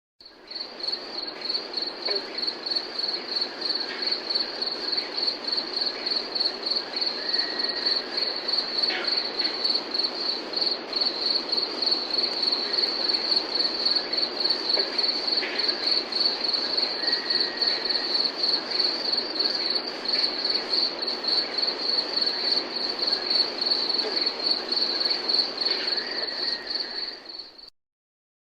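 Crickets chirping in a steady chorus, a high, rapidly pulsing trill that cuts off suddenly near the end.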